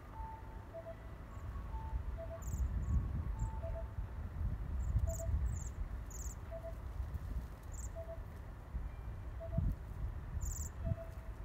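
Bohemian waxwings giving short, high, thin trilled calls, several scattered throughout, the loudest near the end.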